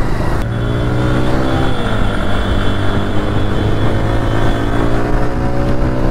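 TVS Raider 125 single-cylinder motorcycle engine heard from the rider's seat, cruising at steady revs with a brief dip in pitch about two seconds in.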